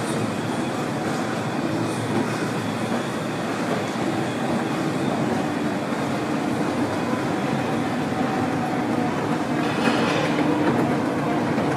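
Escalator running: a steady mechanical rumble and hum, with a short hiss about ten seconds in.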